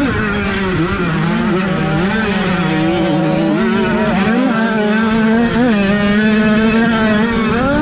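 Small 50cc two-stroke minicross motocross bike engines revving hard, the high-pitched buzz wavering up and down in pitch as the throttle is worked on and off.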